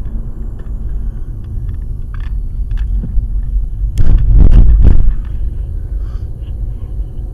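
Steady low road rumble of a car driving, heard from inside the cabin, with a louder rushing swell lasting about a second, around four seconds in.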